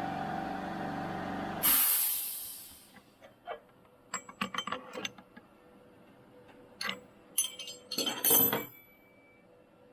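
Tomahawk Pro CNC machine running steadily, then stopping after a short, loud hiss about two seconds in. Scattered metallic clicks and clinks follow over the next few seconds.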